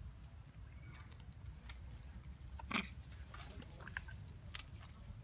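Long-tailed macaque biting and chewing a green plant stalk: scattered short crunches and clicks, one louder about halfway through, over a steady low rumble.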